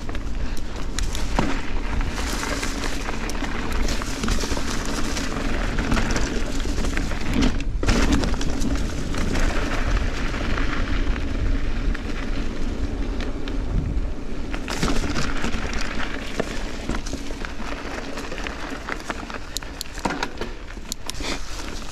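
Giant Trance 29 mountain bike ridden fast down dirt singletrack: a steady rush of wind over the microphone and tyre noise, with frequent sharp knocks and rattles as the bike hits bumps and roots.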